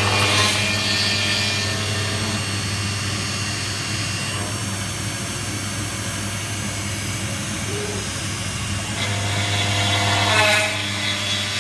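Steady hum of factory machinery running. Two louder hissing, whirring swells come in, one right at the start and another about nine seconds in.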